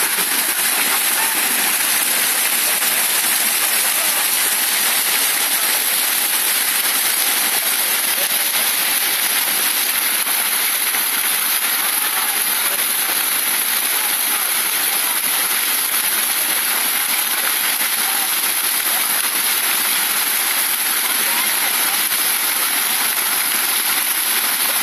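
Fountain jets spraying and splashing back into the basin: a steady, unbroken hiss of falling water.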